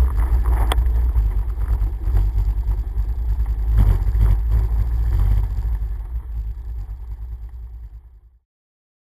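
All-terrain vehicle riding along, heard from a camera mounted on its front: a steady low rumble of engine and wind buffeting the microphone, with one sharp click under a second in. The rumble fades away over the last few seconds and cuts off to silence near the end.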